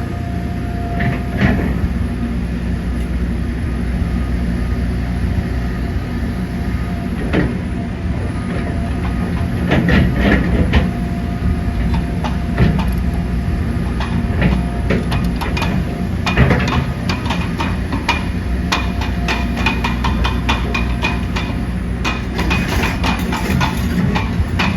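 A steady low rumble of heavy machinery with many irregular metallic clanks and knocks, growing busier toward the end.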